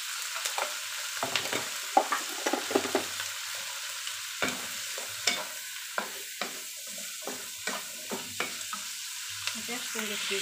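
Vegetables sizzling in oil in a non-stick wok while a wooden spatula stirs and tosses them: a steady frying hiss with irregular knocks and scrapes of the spatula against the pan.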